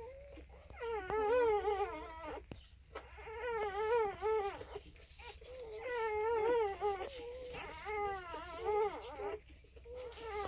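Newborn puppies whimpering while nursing: a string of high, wavering cries, each about a second long, repeating with short pauses.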